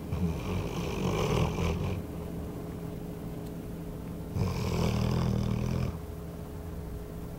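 Small dog snoring in her sleep: two long, noisy snores about four seconds apart.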